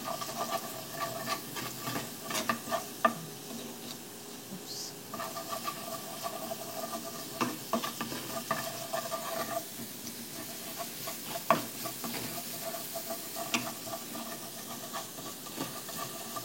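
Food sizzling in hot oil in a pan while it is stirred, with frequent sharp clicks and scrapes of a utensil against the pan: the sauté step, cooking in the oil left from frying chicken. A faint steady tone runs underneath and drops out twice.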